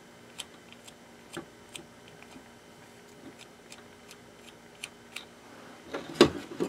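Plastic six-speed rotary selector switch of an old blender turned by hand through its detents: light separate clicks, one or two a second, with louder handling knocks near the end.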